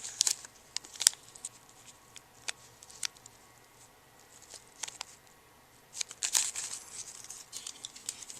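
Small parts and packaging of a lock-pinning kit being handled: scattered sharp clicks and ticks, with a burst of crinkling about six seconds in.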